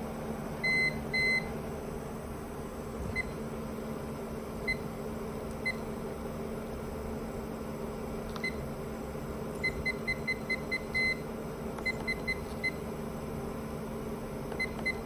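APC Symmetra LX UPS front display panel beeping as its menu buttons are pressed: two longer beeps about a second in, then short single beeps and quick runs of five or six in a row. Under them runs a steady low hum from the UPS's cooling fans.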